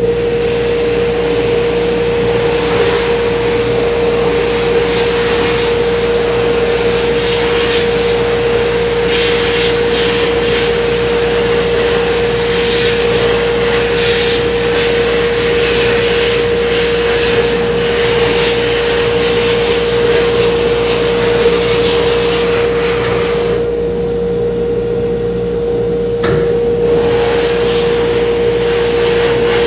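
Soda blast cabinet running: dry baking soda blasted by compressed air from the nozzle in a steady hiss, deburring a cast aluminum transmission valve body, over the steady hum of the cabinet's 2 hp motor. About three quarters of the way in the hiss cuts out for roughly three seconds while the hum keeps going, then resumes.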